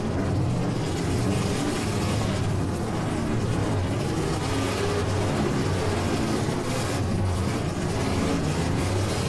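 Several stock half-ton pickup trucks' engines running in a demolition derby, a continuous loud drone that rises and falls a little without a clear crash.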